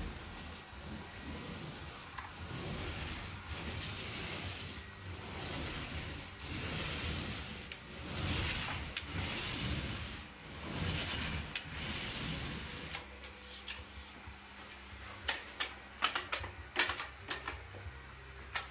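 Paint roller on an extension pole rolling wet undercoat across a plasterboard ceiling, a rasping noise that swells and fades with each stroke. Near the end comes a run of sharp clicks, the loudest sounds here.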